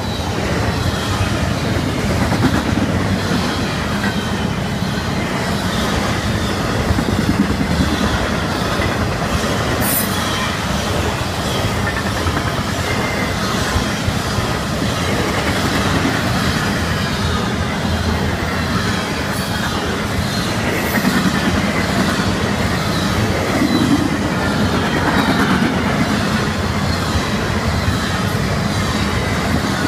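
Freight train of intermodal container and trailer cars, then tank cars, passing close by: a steady rumble and clatter of steel wheels on the rails, with wheel squeal in wavering high tones.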